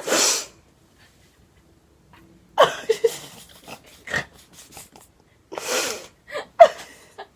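A person's short, breathy, sneeze-like bursts of breath: one sharp burst right at the start, a quiet second or two, then a few short voiced sounds and a second burst about five and a half seconds in.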